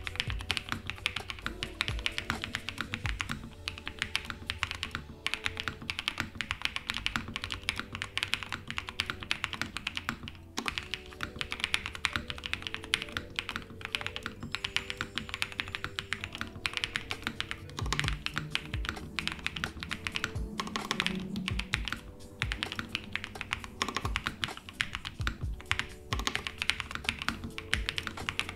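Steady, rapid typing on a Matrixlab AbelX EVA-08 mechanical keyboard fitted with lubed JWK Peach Bloom switches on a polycarbonate half plate, CRP R4 keycaps and Poron bottom foam.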